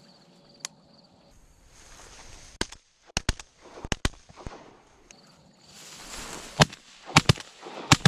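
Two hunters' shotguns firing a rapid string of shots at an incoming duck, in two bursts: the first about two and a half seconds in, the second about six and a half seconds in.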